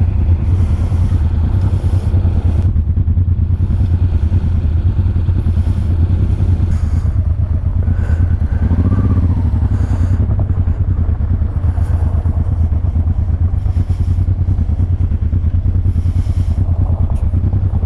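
Honda Transalp 600's V-twin engine running steadily at low revs, its firing pulses heavy in the low end.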